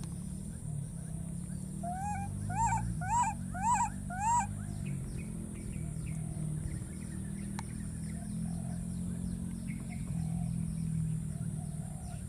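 Baby macaques calling: a run of five short, arched cries about two seconds in, roughly two a second, with fainter similar cries scattered through the rest and a steady low hum underneath.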